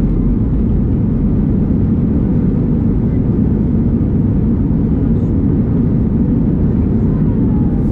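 Steady low cabin noise of an Airbus A321-100 airliner in flight, the engines and airflow heard from inside the passenger cabin.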